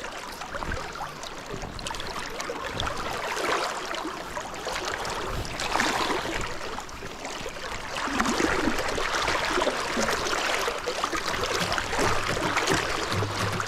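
River current flowing and swirling past a wading angler, a steady watery rush that gets a little louder about eight seconds in.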